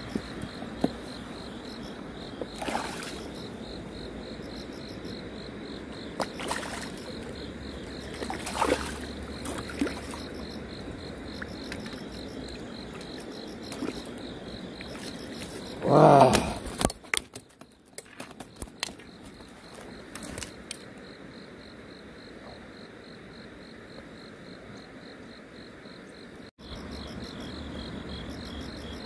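Insects chirping in a fast, even pulsing rhythm over steady outdoor background noise, with a few short faint sounds and one brief loud cry-like sound just past halfway.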